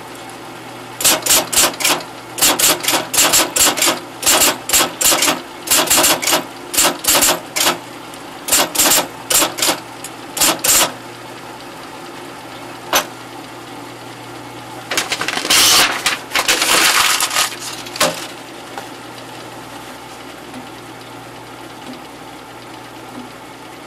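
IBM electric typewriter being typed on in short runs of sharp keystrokes for the first ten seconds or so, then a lone keystroke, and a denser clatter lasting about three seconds. A steady hum runs underneath, the typewriter's motor left running.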